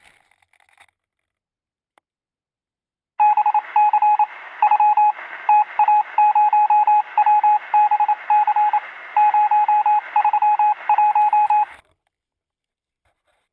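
Electronic beeping: one steady mid-pitched tone keyed on and off in an irregular pattern of short and long beeps, like Morse code, over a faint radio-like hiss. It starts about three seconds in and stops near the end.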